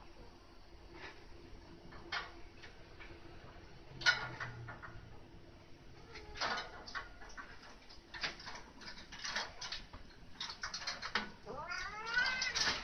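A cat meowing: a run of several short, arching meows near the end, with a few brief clicks and knocks scattered before it.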